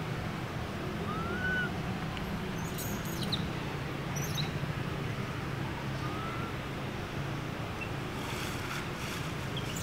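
Outdoor ambience: a steady low hum, with two faint, short rising chirps, about a second in and again about six seconds in, and a few quick high ticks in between.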